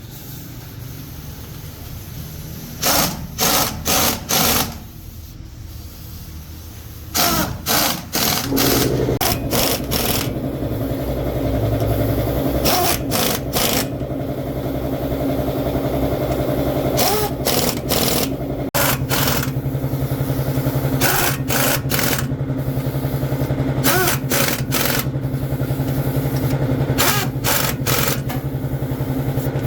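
A motor starts running about eight seconds in and keeps running steadily, while sharp metal knocks and clicks come in clusters of three or four every few seconds.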